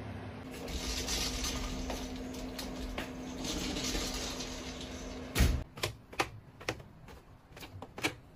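A steady hiss with a faint low hum, cut off by a thump about five seconds in. Then a run of light, uneven knocks: footsteps in slippers coming down wooden loft stairs.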